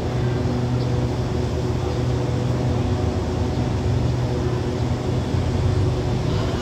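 Steady idling diesel engine of a passenger train standing at the platform: an even low hum with a few steady tones, no change in speed.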